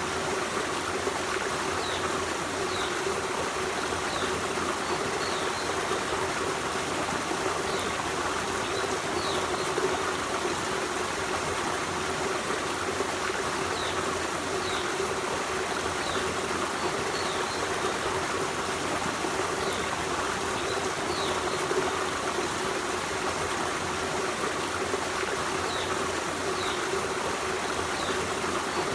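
Forest stream running: a steady rush and burble of flowing water. Faint, short, high-pitched sounds come every second or so in patches.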